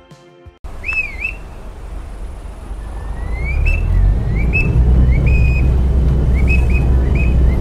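Crew member's whistle on a Chao Phraya Express river boat, blown in a quick series of short toots and rising chirps, the signals to the helmsman while the boat docks at a pier. Under it the boat's engine rumbles loudly, growing louder about halfway through.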